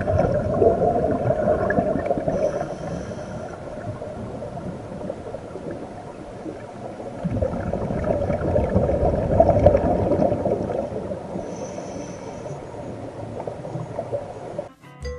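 Underwater sound of a scuba diver breathing through a regulator: a bubbly gurgling rush of exhaled air twice, each followed by a brief faint hiss.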